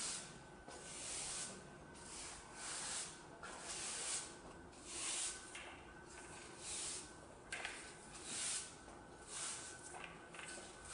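Broom bristles swishing across the floor in repeated sweeping strokes, about one a second, with a single sharp knock about seven and a half seconds in.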